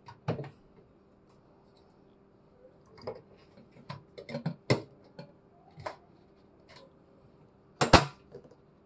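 Short clicks and knocks of a butane gas canister being fitted into a portable gas grill's sheet-metal canister compartment, with a sharp, loud clack near the end as the compartment cover is shut.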